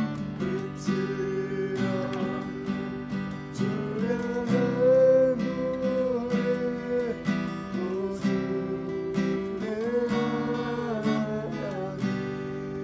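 Acoustic guitar strummed steadily, playing a slow worship song under a held melody line.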